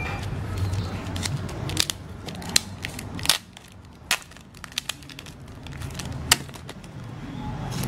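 Clear plastic wrap crinkling and crackling as fingers pick at it and peel it off a flat package, with irregular crackles and a few sharper snaps.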